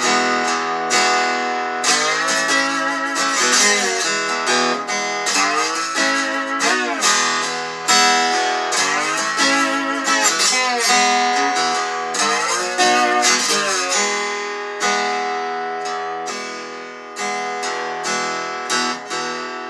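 Instrumental break in a song: acoustic guitar strumming, with a lead guitar line whose notes bend up and down in pitch.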